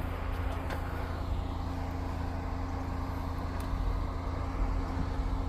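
Off-road vehicle's engine running steadily at low revs, a constant low hum with no revving.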